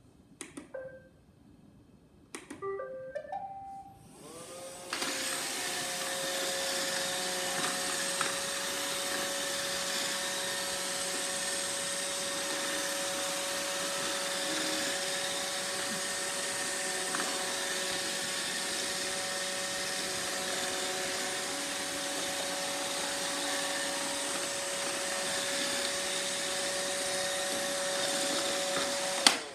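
iRobot Roomba 670 robot vacuum cleaning a hard floor: after a few short tones its motor starts about four seconds in and runs steadily with a constant hum, then cuts off with a click near the end.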